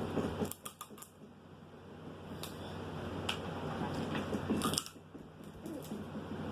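Crab shells cracking and clicking as a crab is picked apart and eaten: a handful of sharp, scattered cracks between quieter handling and chewing, over a steady low hum.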